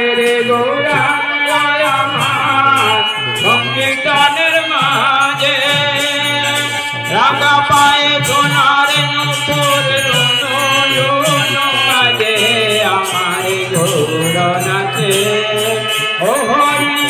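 Devotional kirtan: voices singing a chant-like melody over a khol drum, with regular strokes of percussion throughout.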